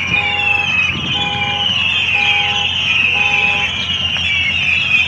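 Car horn sounding in a regular on-off pattern as a car alarm, about one half-second honk per second, four honks, then stopping. A loud, steady, high-pitched din continues underneath.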